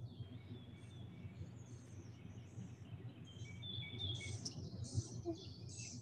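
Played-back field recording of wild birds: several birds chirping and calling in short, high notes that grow busier about halfway through, over a faint low hum.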